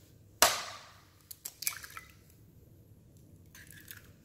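A chicken egg struck once, sharply, against the rim of a ceramic bowl about half a second in. A few small clicks and a short wet sound follow as the shell is pulled apart and the egg drops into the bowl.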